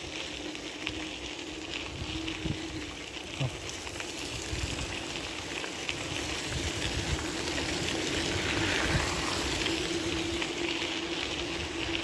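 Bicycle tyres rolling on a gravel trail: a steady gritty hiss that grows louder in the second half, with a steady low hum and a few light knocks from the bike over bumps.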